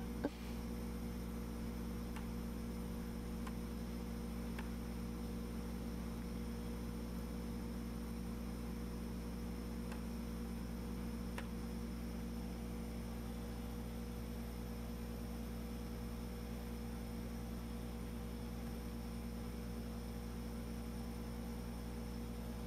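Steady electrical hum made of several unchanging tones, with a few faint clicks here and there.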